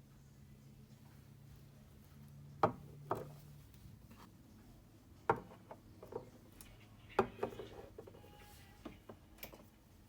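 Scattered sharp knocks and clicks of hard objects being handled and set down, about seven in all. A low steady hum stops a few seconds in.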